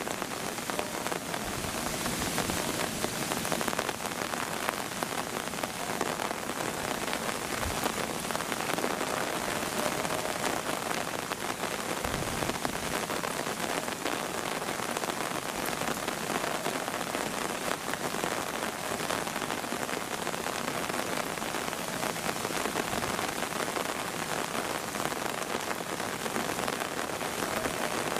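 Steady rain falling, with a few brief low thumps.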